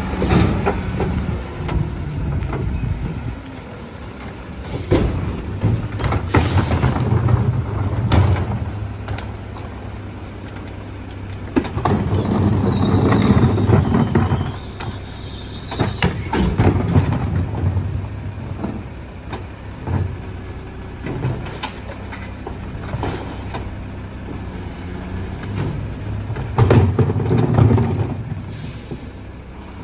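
A split-body rear-loader garbage truck's diesel engine runs at the curb and revs up in several spells as its hydraulics work the tippers and packer. Plastic carts knock and bang now and then as they are tipped and set back down.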